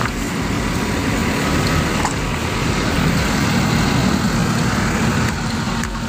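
A concrete mixer truck's diesel engine running steadily, a low continuous drone.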